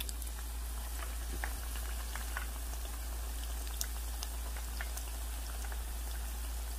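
Battered cauliflower chunks deep-frying in a small pan of hot vegetable oil: a steady bubbling sizzle with many small scattered pops and crackles.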